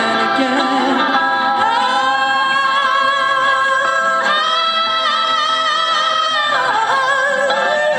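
A man singing long, high held notes that waver and slide between pitches, with guitar accompaniment underneath, in a live song performance.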